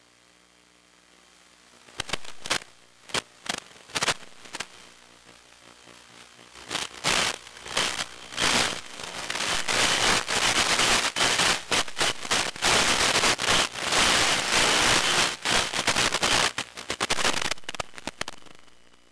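Radio static on the audio channel of a 1.3 GHz analog FPV video receiver as the video link breaks up. Scattered crackling bursts begin about two seconds in and build into a continuous loud hiss full of sharp dropouts, which fades out near the end.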